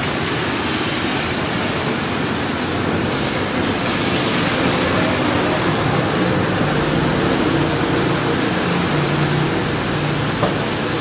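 Heavy rain falling, a loud steady hiss with no breaks.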